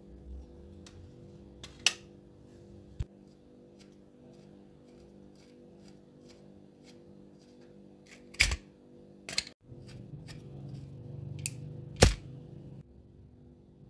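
Small hard parts and tools clicking and knocking: a run of faint ticks with a few louder sharp clicks spread through, over a faint steady hum.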